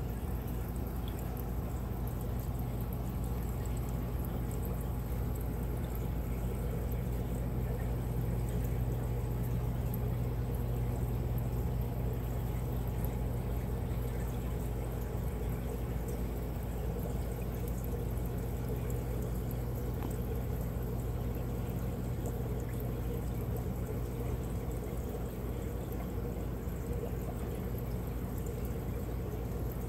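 Steady bubbling and trickling of water from an air-driven sponge filter in a small fish tank, over a constant low hum.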